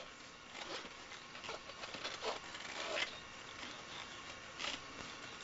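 A quiet pause between sung phrases at a studio vocal microphone: faint steady hiss, a few soft clicks, and a couple of brief faint vocal sounds.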